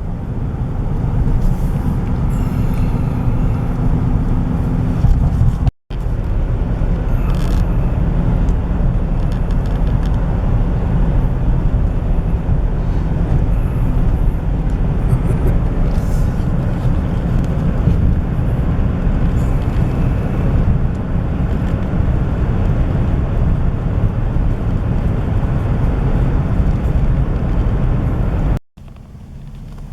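Steady low road and engine rumble heard inside a moving car's cabin. The sound cuts out abruptly for an instant about six seconds in, and again near the end.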